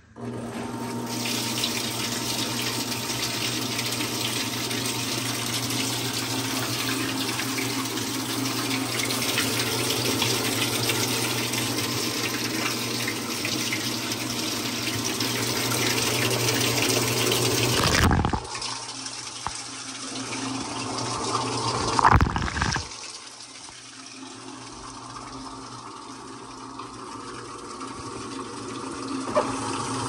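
Water spraying from the fill nozzle into the tub of a Fisher & Paykel top-load washing machine as it fills, a loud steady rush. About 18 seconds in it drops suddenly to a quieter rush, with one short knock a few seconds later.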